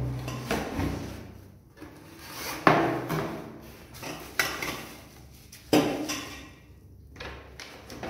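Unboxing clatter: a cardboard box handled and hard grey plastic frame parts, caster wheels and bubble-wrapped steel tubes lifted and shifted inside it. It comes as a few sharp knocks, a second or two apart, with rustling between them.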